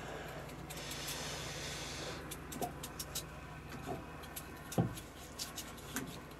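Kitchen knives peeling and slicing raw potatoes by hand, with rubbing blade-on-potato sounds. From about two seconds in there is a run of short, sharp clicks, and a dull thump comes near five seconds.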